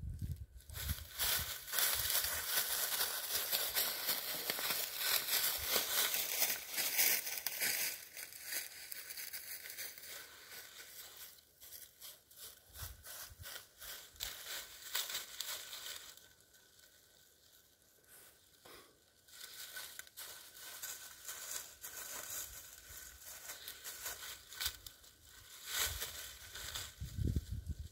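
Dry fallen leaves crunching and rustling as two Great Danes root, paw and nose through them. The crackling is busiest in the first ten seconds, dies down to a lull past the middle, and picks up again near the end.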